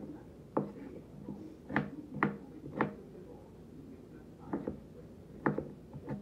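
Kitchen knife chopping pineapple on a wooden cutting board: a string of sharp, unevenly spaced knocks as the blade hits the board, about eight in all.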